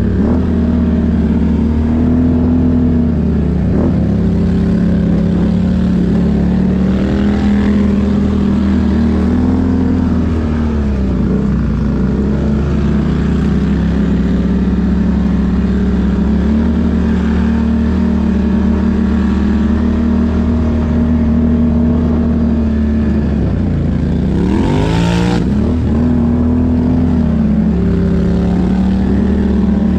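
ATV engine running under changing throttle, its pitch rising and falling. About 24 seconds in the revs drop sharply and climb straight back, with a brief rushing noise.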